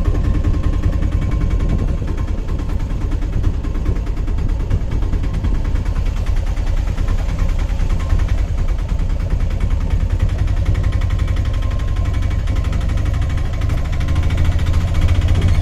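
Auto-rickshaw engine running steadily, heard from inside the open passenger cab with a low, rapidly pulsing rumble; it grows a little louder near the end.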